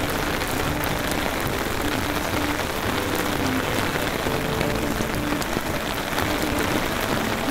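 Steady rain falling and hitting the ground, the early rain of a hurricane.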